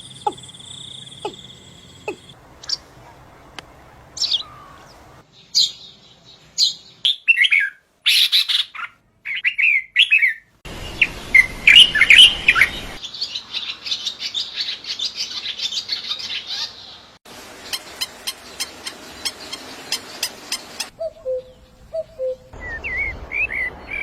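Several different birds chirping, trilling and whistling, one short recording after another, each cut in abruptly with a new background every few seconds.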